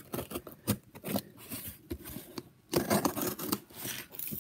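Knife blade slitting the packing tape and cardboard of a shipping box: a run of irregular scraping, cutting strokes, with a louder stretch about three seconds in.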